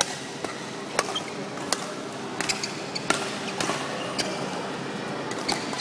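Badminton rally: rackets strike a shuttlecock in sharp, quick cracks, about one every half second to second. Underneath is the steady hum and hubbub of a big sports hall.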